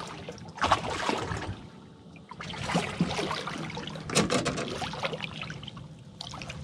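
Water splashing and sloshing as a hooked redfish thrashes at the surface beside a boat's hull and is grabbed by hand. The splashes come irregularly, with a few sharper slaps about three and four seconds in.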